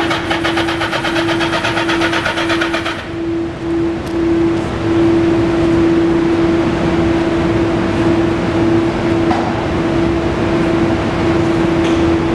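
A 2003 Kawasaki ZR-7 (ZR750) air-cooled inline-four engine running steadily at idle. A harsher, fast rattling noise sits over it for the first three seconds.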